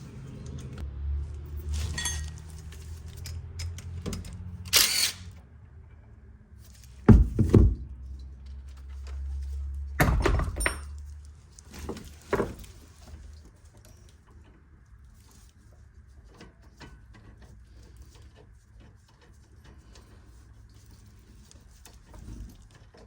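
Metal hand tools and brake parts clanking and knocking while a brake line is moved from an old rear brake caliper to a new one, with several louder thunks in the first half, then quieter handling noises.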